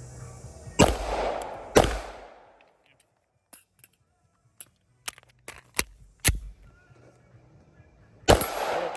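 Pistol shots at a range: two loud shots about a second apart, each followed by a rolling echo, then a run of fainter sharp cracks, and another loud shot near the end.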